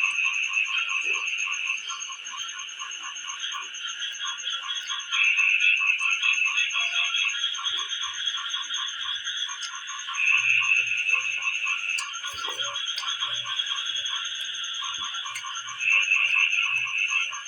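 A steady chorus of calling animals: a rapid pulsing call about six times a second under a high continuous ringing, with a louder trill that swells for about two seconds, four times.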